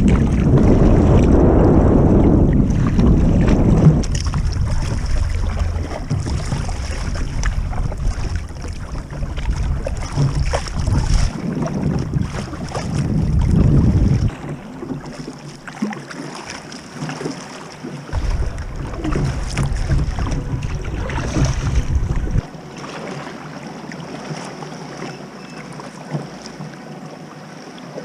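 Gusty wind buffeting the microphone on open water: a heavy low rumble that comes and goes, strongest at the start, dropping away about fourteen seconds in, returning, then easing near the end, with faint water splashing against the kayak.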